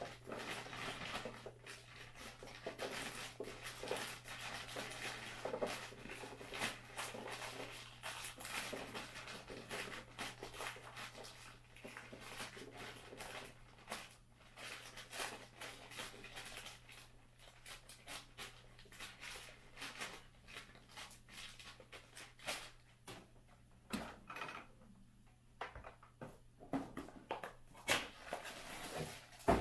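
Plastic bag crinkling and many small foam balls clicking and tumbling as they are poured from the bag into a plastic Nerf blaster hopper, with a brief lull about three quarters of the way through.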